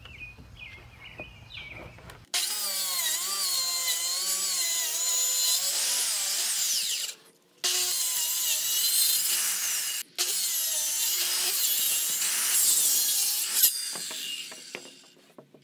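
Handheld circular saw ripping a long wooden board lengthwise, the motor's pitch wavering as the blade works under load through the cut. The sound cuts off briefly twice, and the saw winds down near the end.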